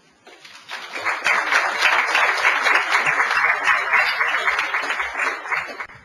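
Audience applauding: many hands clapping, building up in the first second, holding steady, then dying away near the end.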